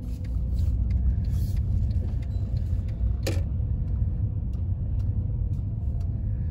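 Steady low rumble of a car driving on a city street, with one short sharp knock about three seconds in.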